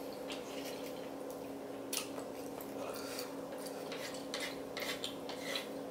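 Quiet eating sounds: faint clicks of chopsticks on the noodles and tray and soft chewing of spicy noodles and rice cakes, with one sharper click about two seconds in. A steady low hum runs underneath.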